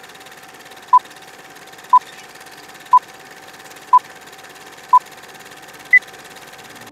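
Film-leader countdown sound effect: six short beeps exactly a second apart, then a single higher-pitched beep about six seconds in, over a steady hiss and hum.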